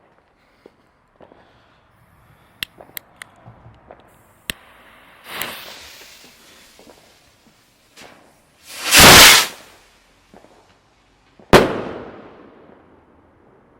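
A few lighter clicks and a hissing fuse, then a firework rocket (Insanity rocket) shoots up with a loud whoosh about a second long. A sharp bang follows a couple of seconds later as it bursts, trailing off.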